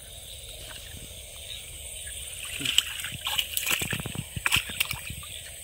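Water splashing and sloshing in a quick run of sharp splashes from about halfway. A net fish trap is being hauled up out of a flooded ditch, with trapped fish thrashing inside it.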